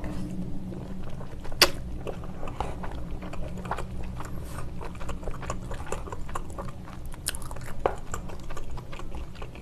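Close-miked chewing of a mouthful of spicy tteokbokki, wet mouth sounds with scattered sharp clicks, the loudest about a second and a half in. A low steady hum lies underneath.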